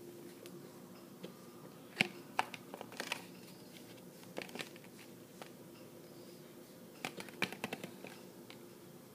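Light clicks and crinkles of a plastic blister pack holding a mascara being handled close to the microphone, in short clusters about two seconds in and again about seven seconds in.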